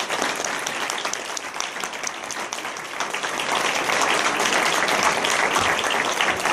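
Audience applauding: many hands clapping densely, growing a little louder about halfway through.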